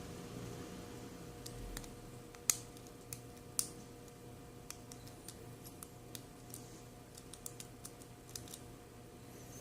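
Lock pick and tension wrench working the pins of a Best 7-pin padlock: faint, irregular small metallic clicks and ticks, with a couple of sharper clicks early on the way.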